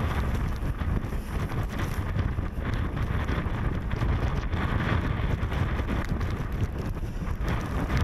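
Blizzard wind gusting against the microphone: a dense, uneven low rumble of buffeting with a hiss of blowing snow above it.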